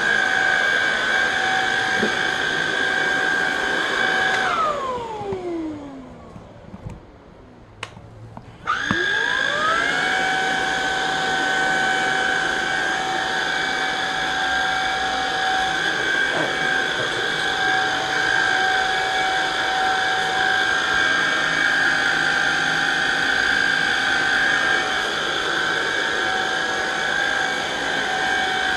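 Vacuum cleaner motor running with a steady high whine. About four and a half seconds in it is switched off and its pitch falls away as it spins down; about four seconds later it is switched back on, whines up to speed and runs steadily again.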